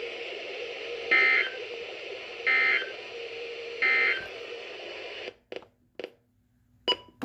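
Emergency Alert System end-of-message code on a weather radio broadcast: three short bursts of warbling two-tone data, evenly spaced a little over a second apart, over steady radio hiss. The hiss cuts off about five seconds in, and a few faint clicks follow.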